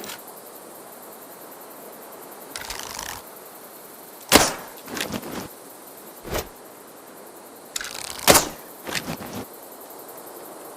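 A bow shot twice: each time a brief rustling draw, then a sharp snap as the string is released, followed by a few softer knocks.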